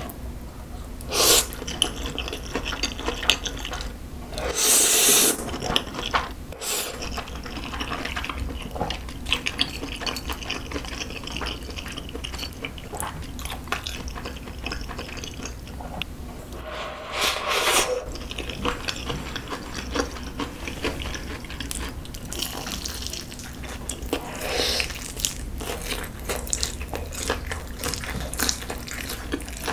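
Close-miked eating of spicy stir-fried ramen noodles: several loud slurps, the longest about five seconds in and another around 17 seconds, with wet chewing and smacking clicks in between.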